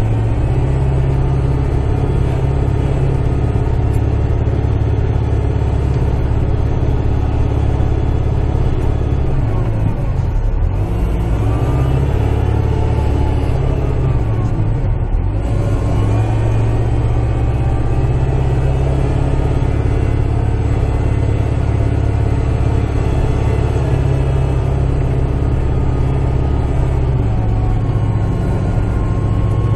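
Kubota tractor's diesel engine running steadily, heard from inside the cab while clearing snow. The engine note dips briefly twice, about ten and fifteen seconds in, then comes back up.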